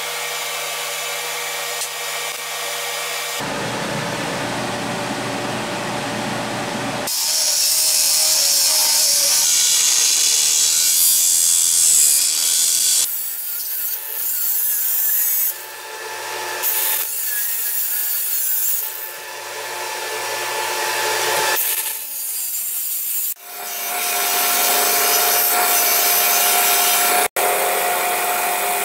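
A run of separate workshop sounds cut one after another: tools scraping and sawing at a rough cast aluminum part, in stretches that start and stop abruptly. Near the end a machine runs with a steady whine under the scraping noise.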